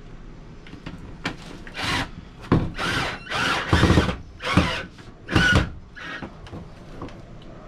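Cordless drill run in about seven short trigger bursts, starting about two seconds in, driving a screw through a TV wall-mount bracket into a camper wall's plywood backer plate.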